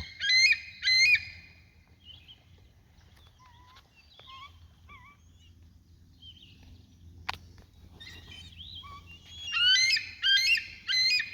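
Bald eagle calling: a quick series of high, piping chirps at the start, then a longer run of them near the end. Fainter, lower bird chirps come in between.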